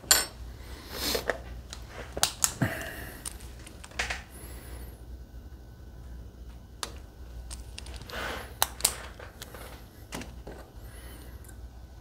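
Scattered light clicks and short scrapes of small metal lock-picking tools being handled at a Medeco lock cylinder held in a bench vise, over a low steady hum.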